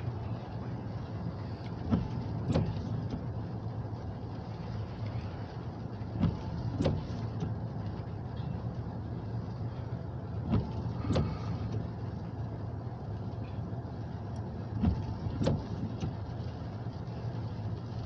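Covered grain hopper cars rolling slowly past on jointed track. Their wheels clack over a rail joint in pairs, one pair about every four seconds, over a steady low rumble.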